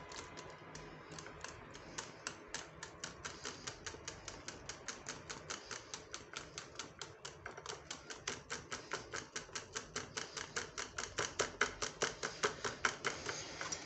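Wire whisk beating lemon cream and butter in a ceramic bowl, its wires clicking against the bowl's sides in a steady rhythm of about five strokes a second that grows louder toward the end. The butter is being whisked in until no lumps remain.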